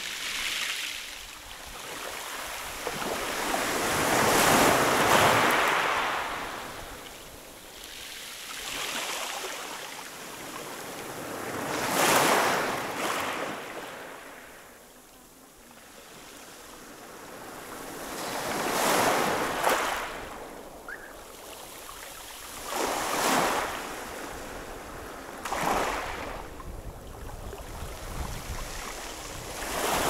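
Small Black Sea waves breaking on a pebble beach and washing back over the stones, swelling and fading every three to five seconds.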